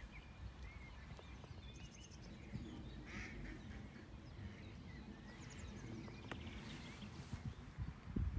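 Faint outdoor ambience: a low, fluttering wind rumble on the microphone, with scattered short bird calls.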